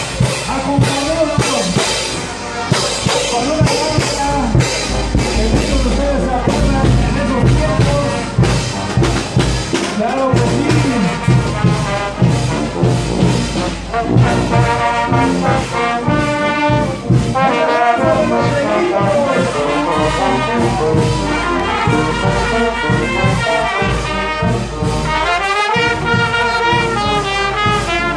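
Live brass band playing: trumpets, a sousaphone and saxophones carry the tune over a bass drum and hand cymbals striking a steady beat of about two a second.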